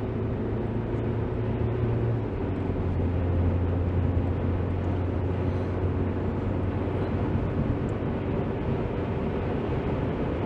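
Car engine and tyre–road noise heard from inside the cabin while accelerating up to motorway speed. About two seconds in, the engine note drops to a lower pitch as it shifts up a gear, then runs steadily.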